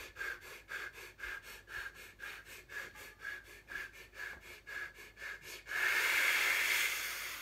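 A man hyperventilating: quick, even breaths about four a second. Near the end comes one long, hard exhale of over a second that fades out, blowing the air from his lungs.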